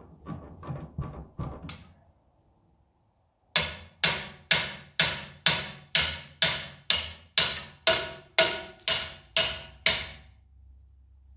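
Hammer striking metal on a tractor engine being taken apart. A few lighter, quicker knocks come first, then after a short pause about fifteen hard, ringing blows at about two a second, stopping near the end.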